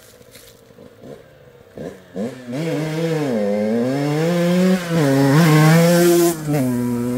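Honda CRE two-stroke dirt bike engine, bored out with an 80 cc DR cylinder and breathing through a 19 mm Dellorto carburettor, comes in about two seconds in. It is revved up and down several times, loudest just past the middle, then settles to a steady idle near the end.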